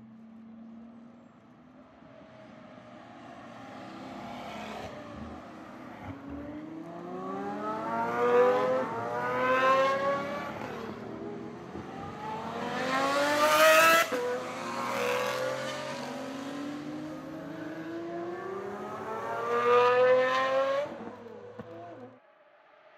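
Pagani supercars' V12 engines accelerating hard on track, revs climbing steeply and breaking at each upshift, one car after another. The loudest car passes about two-thirds of the way through, and the sound drops away abruptly near the end.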